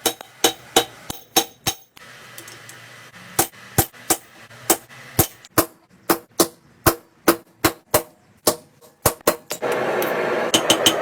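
Blacksmith's hammer striking steel on an anvil in a quick, even rhythm of about three blows a second, with a short pause early on. About ten seconds in, a steady rushing noise starts up under the continuing blows.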